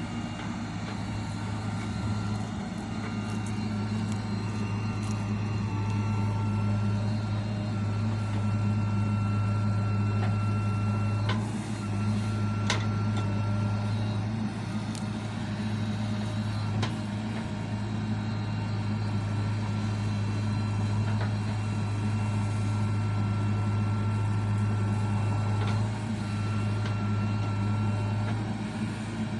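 Diesel engine of a JCB 3DX backhoe loader running steadily under working load. Its low hum is constant throughout, with a thin whine coming and going and a few sharp clicks.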